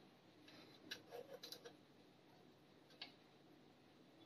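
Near silence: a few faint light clicks, a small cluster about a second in and one more about three seconds in.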